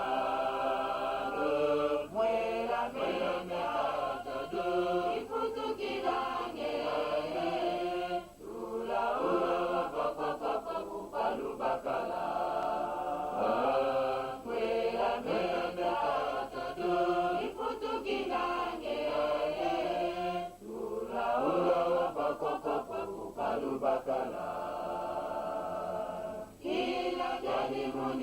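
A choir of voices singing or chanting together in long phrases, with short breaks between phrases, about 8, 20 and 26 seconds in.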